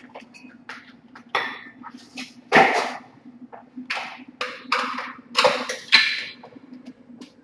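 Kitchenware being handled on a counter: a string of short clatters and scrapes, the loudest about two and a half seconds in and again around five and a half to six seconds, over a low steady hum.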